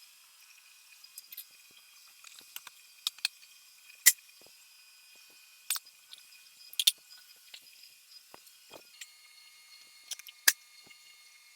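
Scattered sharp light clicks and ticks, about a dozen of them, over a faint steady high hiss in the welding shop.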